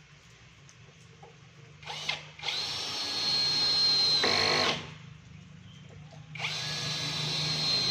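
Power drill driving hinge screws into a wooden door: a brief blip about two seconds in, then a steady run of about two seconds that stops, and a second run starting past the middle that continues to the end.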